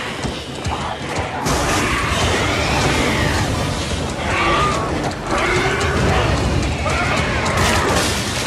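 Film sound mix: a burst of fire and flames burning, with wavering, shrill cries over it.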